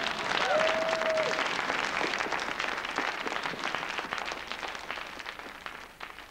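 Crowd applauding, with one voice calling out briefly near the start; the applause gradually fades away toward the end.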